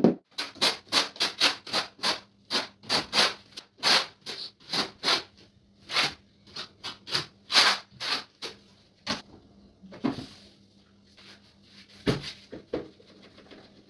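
Quick, repeated scraping strokes of a hand tool on a hard surface during tiling work, about three a second, thinning out to a few scattered strokes after about nine seconds.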